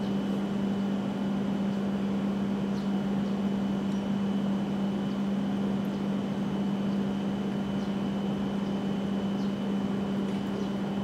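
Steady station-platform ambience: a constant low hum with a faint high whine above an even background hiss, unchanged as the Shinkansen train comes into view.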